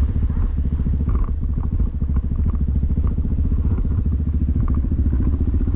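Yamaha XT225's single-cylinder four-stroke engine running steadily at low revs, an even thumping pulse without revving, with a few faint light ticks over it.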